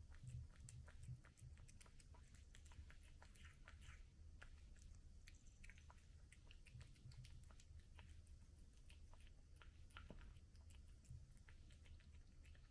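A cat chewing its food: faint, irregular small clicks and crunches, over a low steady hum.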